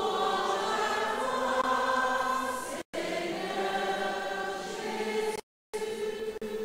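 Church congregation and choir singing together, a sung acclamation right after the Gospel reading. The audio drops out briefly twice, about three seconds in and again near the end.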